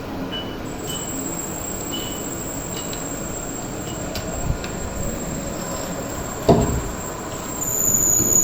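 CNC lathe and machine-shop noise: a steady mechanical rumble with a thin high whine over it, and a single sharp knock about six and a half seconds in. The noise swells slightly near the end as the whine shifts higher.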